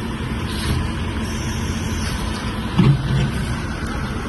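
Motor vehicle engines running with a steady rumble, with a short louder sound about three seconds in.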